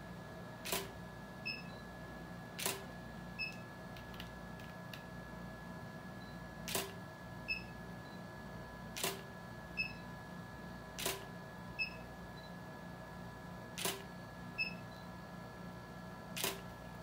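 Camera shutter firing seven times at uneven gaps of two to three seconds, each shot a sharp click followed a moment later by a smaller one, over a faint steady hum.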